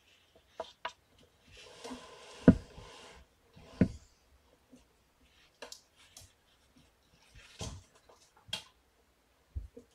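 Rustling and scattered knocks of a person shifting on the floor and handling kittens, with a stretch of rubbing about a second and a half in and two louder thumps about two and a half and four seconds in.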